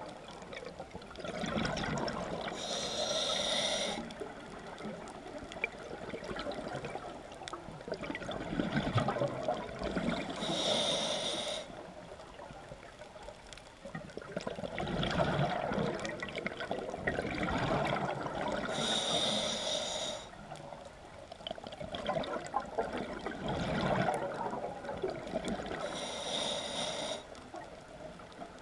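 A scuba diver breathing through a regulator, heard underwater. A short hiss on each inhale comes about every eight seconds, four times, and between the breaths there is a longer rush of exhaled bubbles.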